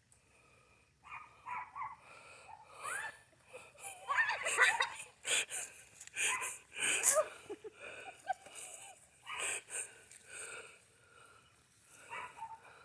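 Animal noises from a rooster confrontation: a run of irregular short snorts, squawks and scuffles, loudest in the middle.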